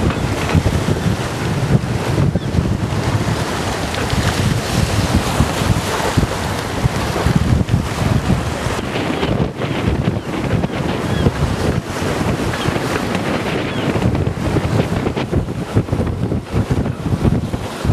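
Strong wind buffeting the microphone on a sailboat under way in high winds, over the rush of water and waves along the hull.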